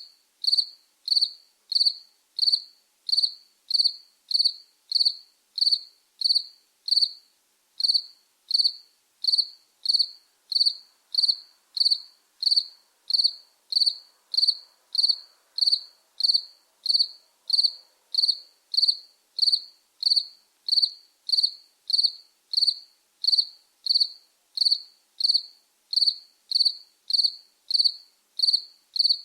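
A cricket chirping at a steady, even rate, one short high chirp a little under twice a second.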